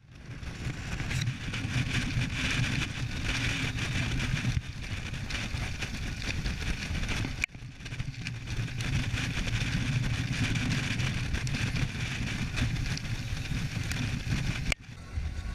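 Speedboat engine running hard at speed, mixed with the rush of water along the hull, a steady roar without a clear tune. It fades in at the start and breaks off sharply twice, about halfway and near the end.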